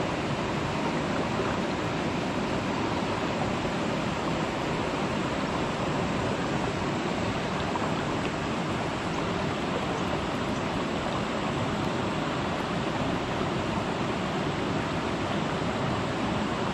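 Steady rushing of a muddy river flowing over rocks, even and unbroken.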